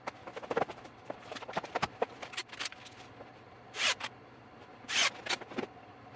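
Cordless drill driving screws into a wooden speaker baffle plate in two short bursts, about four and five seconds in, among clicks and knocks of handling at the workbench.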